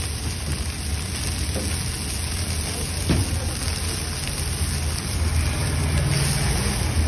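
Sauce sizzling and bubbling in a wok of deep-fried vegetable Manchurian balls, with a steady hiss over a constant low rumble.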